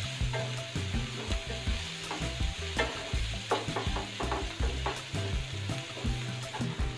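Chopped onion, green chillies and garlic sizzling in hot oil in a non-stick pan on high flame, stirred with a wooden spatula that scrapes and knocks against the pan in irregular strokes.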